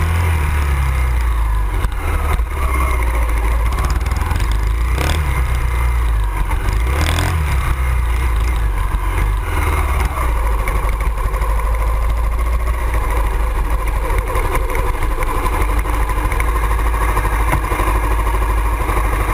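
Honda XR 250 Tornado motorcycle's single-cylinder engine running while being ridden, its pitch rising and falling with the throttle over a heavy low rumble.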